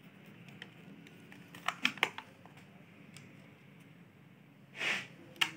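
Three quick plastic clicks close together about two seconds in, then a short scrape and one more click near the end. These come from the plastic casing of an extension board being pressed shut and turned over in the hands.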